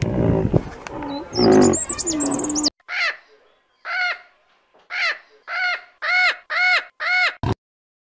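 Animal calls from an edited animal-sound compilation. First a mix of low calls with high chirps over them, then a run of about eight short, clear calls, each rising and falling in pitch, coming faster near the end before an abrupt cut.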